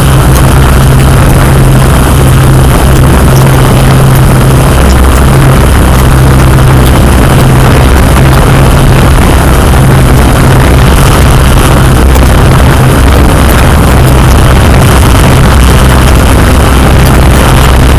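Yuneec Q500+ quadcopter's motors and propellers running steadily at hover, heard close from on board, loud with a low hum that wavers in and out under a wash of noise.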